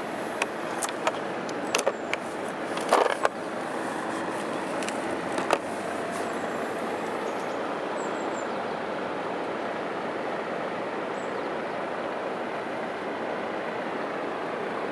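Plastic tool case being opened: a few sharp clicks and knocks from the latches and lid in the first five seconds, the loudest cluster about three seconds in. After that only a steady background hiss remains.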